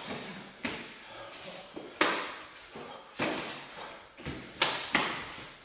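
Sparring sounds of two barefoot fighters: about five irregular slaps and thuds of blows landing on gloves and bodies and feet striking a wooden floor, each with a short echo in the hall, two in quick succession near the end.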